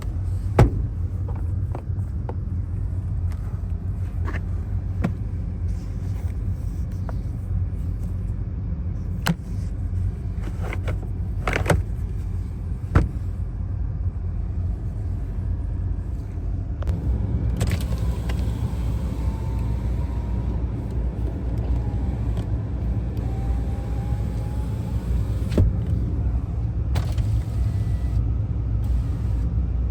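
Scattered clicks and knocks of car interior parts being handled, over a steady low rumble. In the second half a faint whine rises and falls a couple of times.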